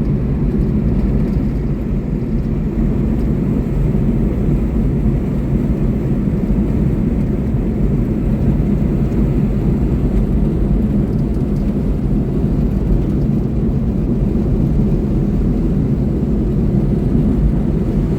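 Small truck driving along at a steady pace, heard from inside the cab: an even, steady drone of engine and tyre noise.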